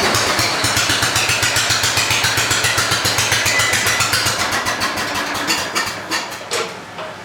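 Wheel Horse 414-8 garden tractor engine running with a steady, rapid firing pulse, growing fainter from about five seconds in.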